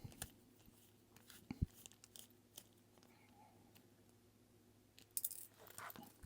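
Faint, scattered clicks and taps of small metal watch parts and a screwdriver being handled, with a louder cluster of clicks about five seconds in and again near the end.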